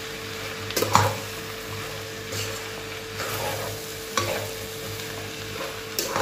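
Chopped beef and tripe sizzling in a pot as a spoon stirs them, with a few sharp scrapes of the spoon against the pot. The meat is frying dry in its seasoning powder, with no water added yet.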